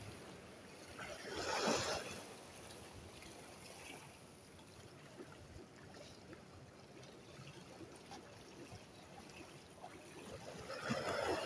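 Sea waves washing and splashing against rocks and a concrete seawall, with a louder surge about a second and a half in and another building near the end.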